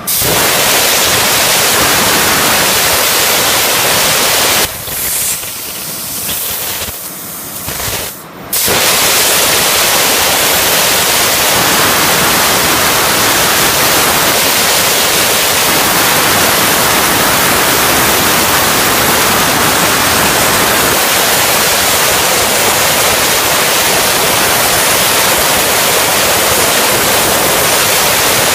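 CNC plasma torch cutting 12 mm steel plate: a loud, steady hiss of the arc and its air jet. It drops away about five seconds in and comes back about four seconds later, as between two cuts.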